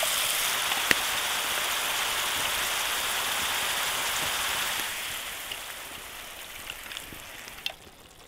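Mushrooms and onions sizzling in a hot cast iron skillet, a steady hiss that dies down over the last few seconds.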